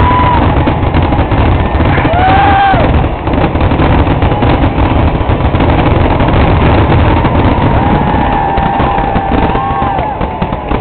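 Fireworks finale: a dense, continuous barrage of shell bursts with constant rumbling booms and crackle. High whistling tones rise and fall over it a couple of times.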